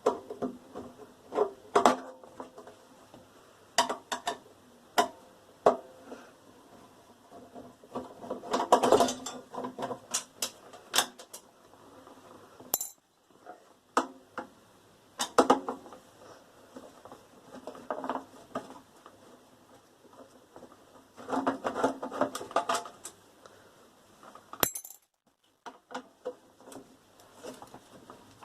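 Metal parts of a microwave oven clinking, knocking and rattling as it is taken apart by hand, in irregular knocks with two longer spells of rattling.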